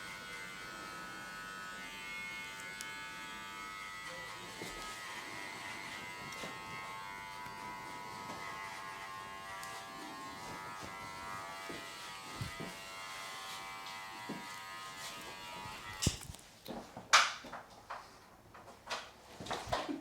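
Electric hair clipper running steadily, cutting off about 16 seconds in, followed by a few sharp clicks and taps.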